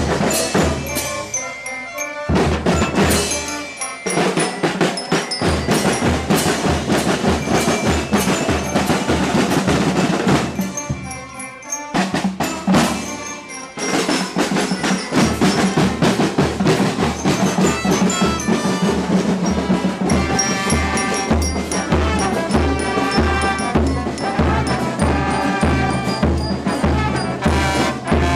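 Drum-led band music: drums keep a steady beat of about two strokes a second, with bell-like mallet tones ringing over it. The music dips briefly twice.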